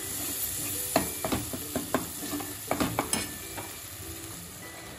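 A metal spatula stirring thick onion-tomato masala in a kadhai, clicking and scraping against the pan over the steady sizzle of the masala frying in oil. The clicks come in a cluster from about a second in until about three seconds, then the stirring goes quieter.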